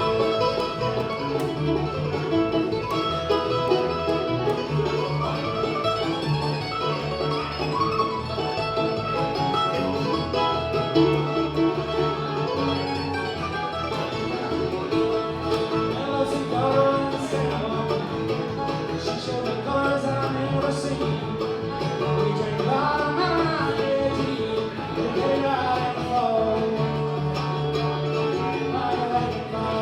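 Bluegrass band playing live: a stretch of picked acoustic string instruments over a steady bass beat, between sung verses.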